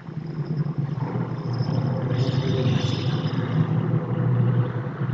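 A low, steady engine drone that grows louder over the first second or two, then holds.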